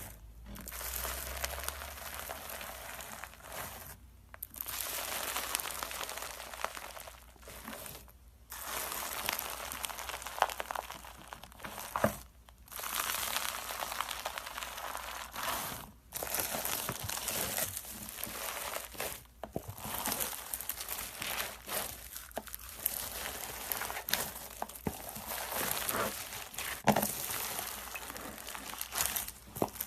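Slime being squeezed and poked by hand, with dense crackling and small pops, in a run of short clips that break off every few seconds.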